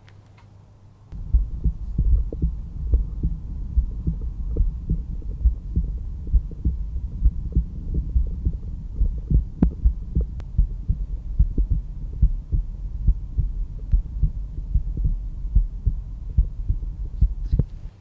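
A resting man's heartbeat heard through a stethoscope over the pulmonary valve area, at the second rib space left of the breastbone. It is a steady lub-dub rhythm of low thuds that starts about a second in.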